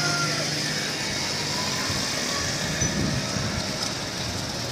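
Road traffic: motorcycles riding past with their engines running, over a steady background of street noise, a little louder about three seconds in.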